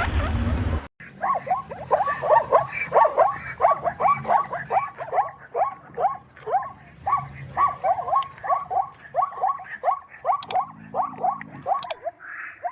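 An animal calling in a long, fast series of short falling squeaks or yelps, about four a second. Two sharp clicks come near the end.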